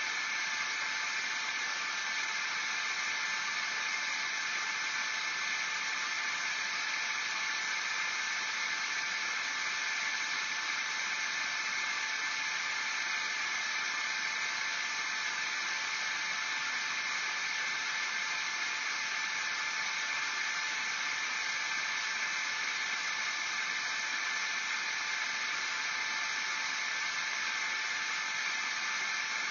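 White noise machine giving a steady, unbroken hiss.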